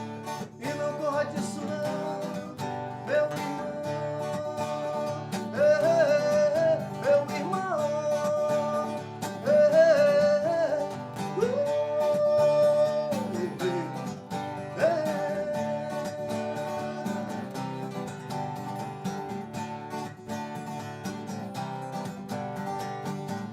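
Live song on acoustic guitar, with a melody line that bends and holds notes above the chords between about 5 and 15 seconds in.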